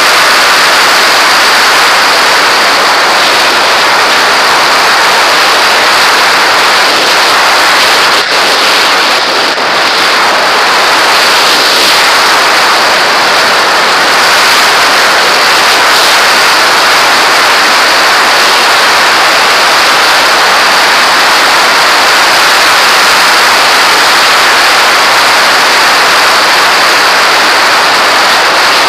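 Steady, loud rushing noise of a model aircraft in flight, picked up by its own onboard camera: airflow over the camera and airframe, with no change in pitch.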